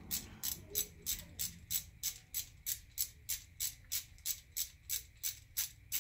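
Hand ratchet clicking steadily, about three clicks a second, as a bolt is run down on a Quad 4 engine's timing chain assembly.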